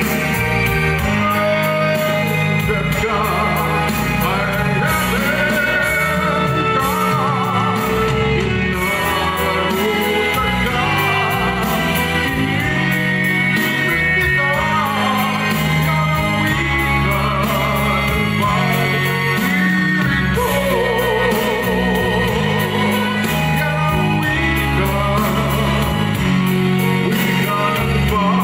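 A man singing a Tagalog love ballad into a microphone over amplified backing music, with a wavering vibrato on held notes.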